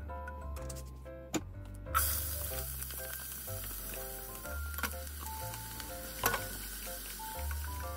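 Chopped onion hitting a hot pot begins sizzling suddenly about two seconds in, and the frying sizzle carries on as ham strips are added and stirred with a spatula, with a few sharp knocks against the pot. Background music with a steady bass line plays throughout.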